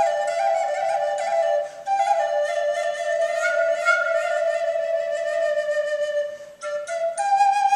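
Native American flute playing a slow melody of held notes, breaking off briefly near the end before going on.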